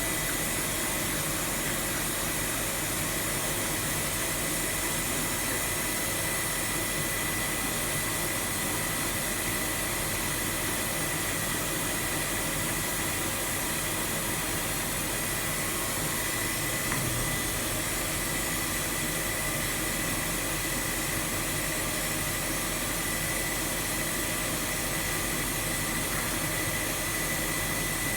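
Steady machine-shop noise from running machinery: an even hiss and hum with a thin, steady high whine that does not change, and one small knock about seventeen seconds in.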